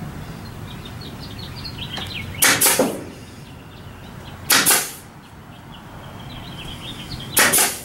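Pneumatic brad nailer firing three times, a couple of seconds apart, each shot a sharp double bang, driving brads into a wooden window frame.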